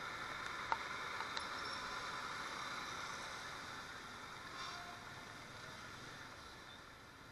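Steady hiss of heavy rain and wet-road traffic on a rain-spattered motorcycle camera, with a few sharp ticks in the first second and a half; the hiss eases toward the end.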